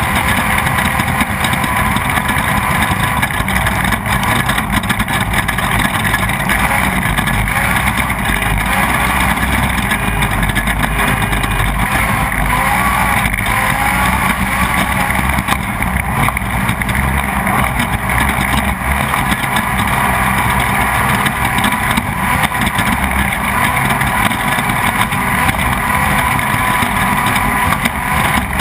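Off-road race vehicle's engine running hard at racing speed, heard from on board together with the steady noise of the ride.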